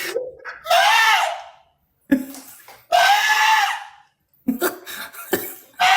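A person imitating an animal with three high-pitched shrieking calls, each under a second long, with short low vocal sounds between them.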